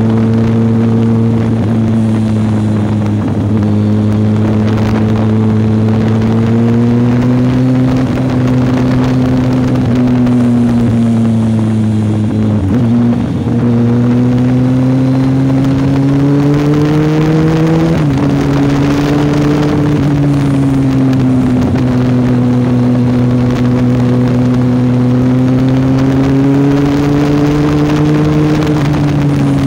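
Kawasaki ZZR1400's inline-four engine running at steady mid revs at road speed, heard from the rider's seat over rushing wind, its pitch rising and falling gently with the throttle. The revs sag briefly and recover about 13 seconds in. About 18 seconds in the pitch climbs and then drops suddenly before slowly rising again.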